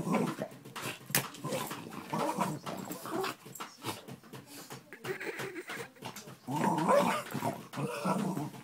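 Cairn terrier growling and barking angrily at a rotating hair-dryer brush, in uneven bursts that are loudest about six and a half seconds in.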